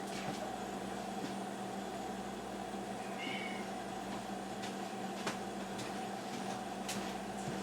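A cat gives one short, high meow about three seconds in, over a steady low hum, with a couple of light clicks later on.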